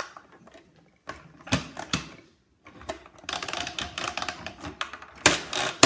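Hard plastic clicking and rattling as a Cars 3 Mack hauler toy trailer is handled and its parts worked. A few scattered clicks come first, then a dense run of rapid clicks from about three seconds in, with a louder knock near the end.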